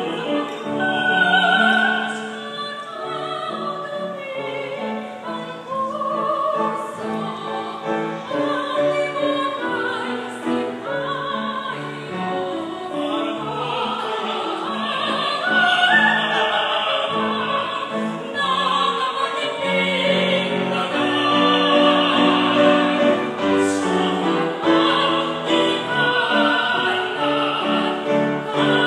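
A woman and two men singing a Tagalog song in classical, operatic style, their voices overlapping in harmony, with piano accompaniment.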